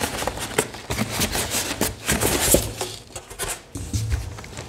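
A polystyrene foam packing insert being lifted out of a cardboard box, scraping and rubbing against the cardboard in irregular scratchy strokes, with a few knocks.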